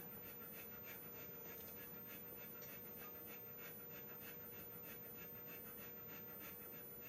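Faint rhythmic panting, about three breaths a second, over a steady low electrical hum.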